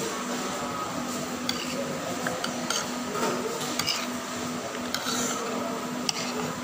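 A metal fork clinking and scraping against a plate of rice and fried chicken, several short separate clicks, over a steady low hum of room noise.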